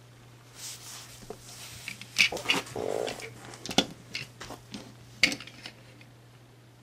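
Small plastic Happy Meal Transformers toys being moved and set down on a surface: scattered clicks, knocks and short scrapes, with a faint steady low hum underneath.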